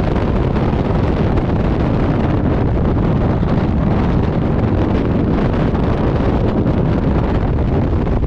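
Freefall wind blasting over the microphone, a loud, steady rush heaviest in the low rumble.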